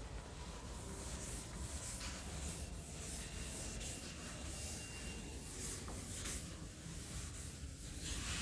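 Blackboard duster wiping chalk off a chalkboard in repeated rubbing strokes, about one a second.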